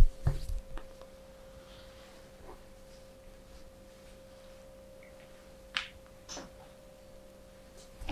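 A steady, unwavering tone is held, with a few faint clicks and knocks.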